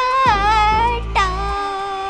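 Outro music with a sung melody over a low bass tone; a long held note starts a little past halfway.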